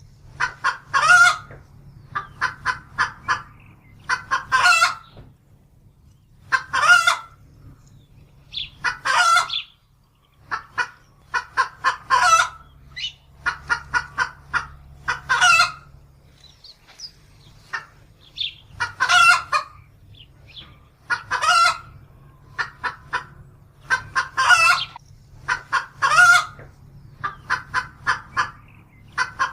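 Rooster crowing over and over, about a dozen crows, each a few short notes ending in a longer, louder one, coming every two to three seconds.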